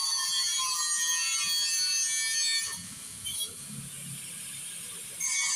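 Angle grinder grinding steel, a loud whining grind. About two and a half seconds in it comes off the metal and the sound drops, and the grinding starts again near the end.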